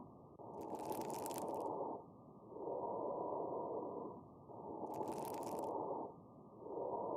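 Recorded lung sounds heard through a stethoscope, played as an example of an abnormal breath sound: breaths come about every two seconds. Twice a brief higher hiss sounds over the breathing, about a second in and about five seconds in.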